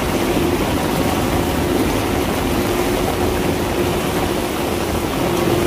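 Heavy rain pouring onto a tiled rooftop terrace, a steady, dense rush of falling and running water.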